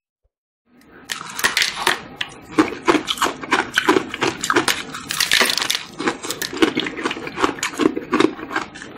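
Close-up crunching of ice frozen in the shape of a water bottle, bitten and chewed in the mouth: many rapid, crisp crunches that start about a second in.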